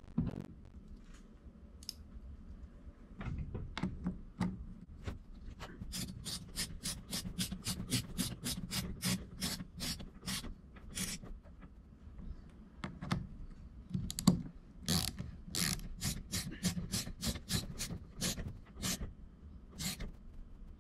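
Ratcheting clicks as a shock's top mounting screw is tightened on an RC buggy's shock tower: two runs of quick, even clicks, about three a second, with a few loose clicks before them.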